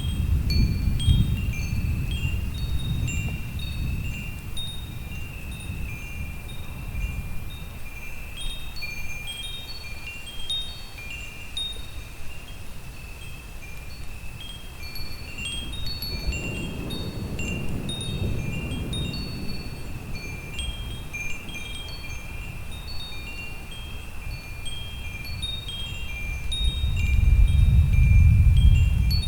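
Wind chimes tinkling without pause, with many overlapping high-pitched notes. Under them, thunder rumbles low three times: at the start, around the middle, and loudest near the end.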